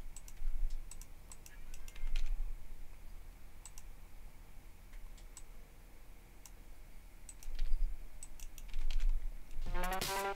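Computer mouse and keyboard clicks, sparse and irregular, over a low steady hum. Near the end, music playback starts.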